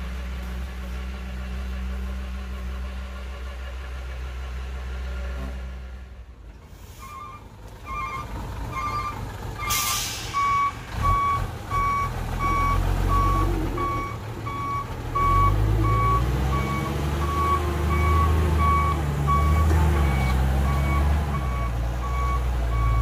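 A small Komatsu crawler bulldozer's diesel engine runs steadily for the first six seconds. Then a loaded Hyundai dump truck's beeper starts a steady, evenly spaced beeping over its diesel engine, with a short hiss about ten seconds in. The engine grows louder from about fifteen seconds on.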